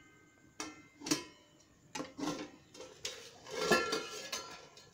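Steel lid clinking and clattering against a metal cooking pot, a string of knocks with a short metallic ring, the loudest about three and a half seconds in.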